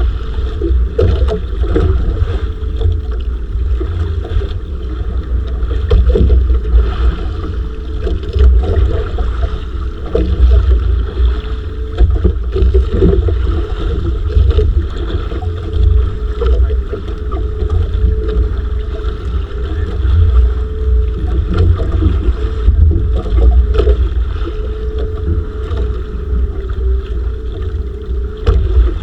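Wind buffeting the microphone aboard a small bangka fishing boat at sea, with a heavy, gusting rumble and a steady hum underneath, plus occasional knocks.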